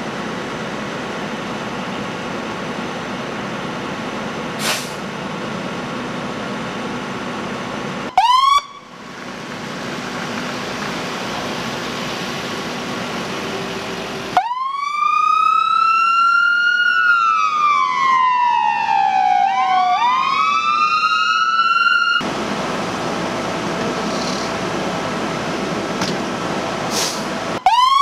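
Steady idling engine noise, then a brief rising siren whoop about eight seconds in. Later an ambulance's electronic siren wails, the loudest sound, rising, gliding slowly down and rising again for about eight seconds before cutting off suddenly, with another short whoop near the end: the ambulance leaving with lights and siren, code 3, to transport the patient.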